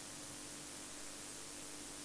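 Steady faint hiss with a low, even hum underneath: background noise, with no clear sound from the TV.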